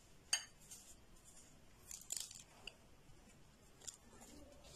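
Faint crunching and rustling of coarse salt as hands pack it into a lemon cut open in quarters for preserving. There are a few short, sharp crackles, one about a third of a second in and a small cluster around two seconds.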